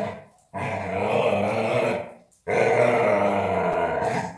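Black Labrador growling in play while guarding its rope toy: two long, rough growls, each about two seconds, with a brief break between them.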